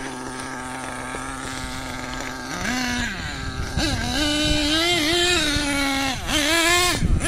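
HPI Savage XL nitro RC monster truck's small engine idling steadily, then revved up and down repeatedly from about two and a half seconds in as the truck drives off over the dirt.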